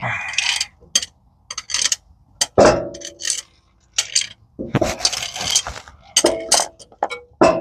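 Steel sockets and hand tools clinking and clanging as they are handled and sorted: a run of sharp metallic knocks, several ringing briefly.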